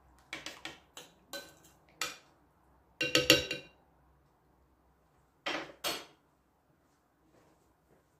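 Metal spoon clinking and scraping against a glass casserole dish while stirring tomato purée: a string of sharp clinks, the loudest ringing cluster about three seconds in, then two more clinks around five and a half seconds in.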